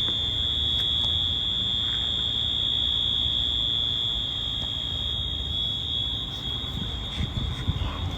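A fire alarm sounding one continuous high-pitched tone over a low rumble. The tone weakens near the end as the rumble grows.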